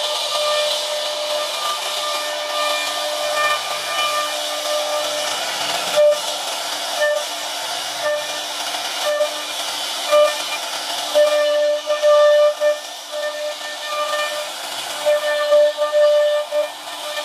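CNC router spindle driving a large profiling cutter through a solid-wood door panel: a high whine over the hiss of the cut. The whine breaks up and comes back in the second half, and there are a few sharp ticks.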